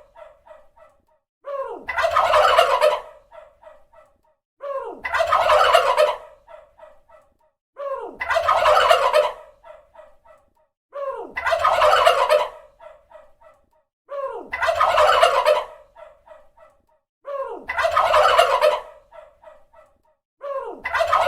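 Tom turkey gobbling, the same gobble repeated evenly about every three seconds: each a loud rattling burst of about a second, trailing off into a string of short, quick, fading notes.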